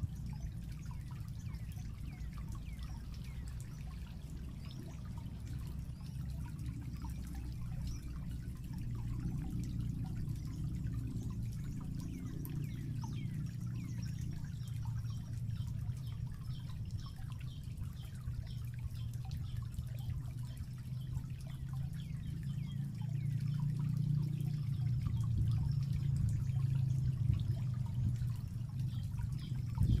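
Water trickling steadily, a little louder in the last third, with faint high chirps throughout.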